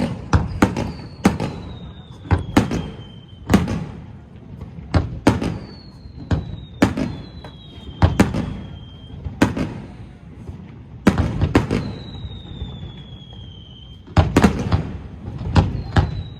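Fireworks display: an irregular run of sharp bangs from bursting shells, with several high whistles that glide slightly down in pitch. A quick cluster of bangs comes near the end.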